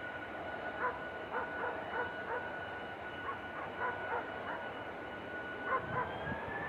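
A dog yapping in short, high barks, about a dozen in irregular clusters. Underneath runs the steady whine of a jet engine, which rises in pitch about six seconds in.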